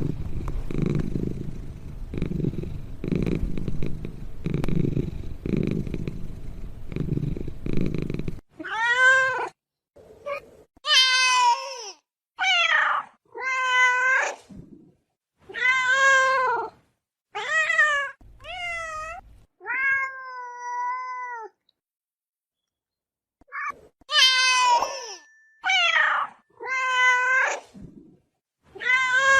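Ocelot vocalising: a low pulsing rumble at about one pulse a second for the first eight seconds, then a series of about a dozen drawn-out meows, each rising and falling in pitch.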